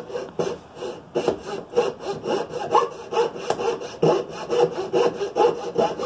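Coping saw cutting through a pine block, with steady, rapid back-and-forth rasping strokes.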